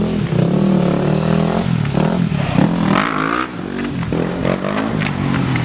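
Dirt bike engine revving and running as the bike rides off, its pitch rising and falling, with a rising rev about three seconds in.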